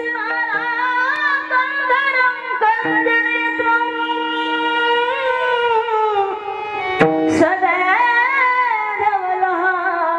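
A singer holding long, ornamented wordless vowel lines in a devotional bhajan, the pitch wavering and sliding, over a steady drone note. The voice breaks off briefly about seven seconds in, then carries on.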